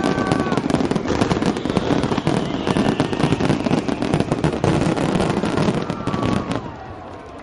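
A fireworks barrage: many aerial shells bursting in rapid succession, with a dense crackle of sharp reports. It thins out and falls away near the end.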